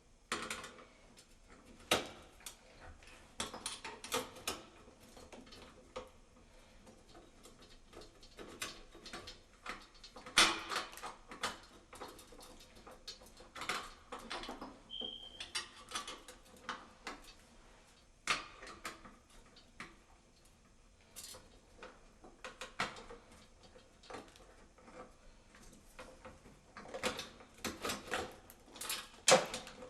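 Irregular clicks, clinks and knocks of small hard objects being handled, in scattered clusters, with a short high squeak about halfway through.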